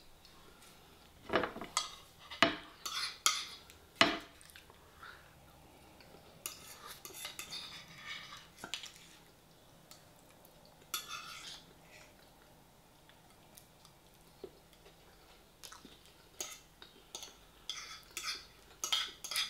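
A metal fork clinking and scraping against a plate in scattered clusters of sharp clicks and short scrapes, with quiet gaps between, as food is cut and lifted.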